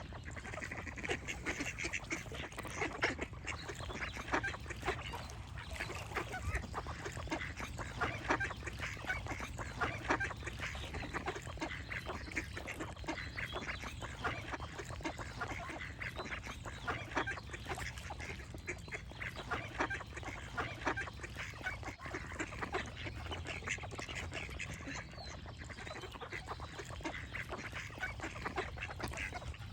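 A flock of ducks quacking and calling, many short overlapping calls without a break.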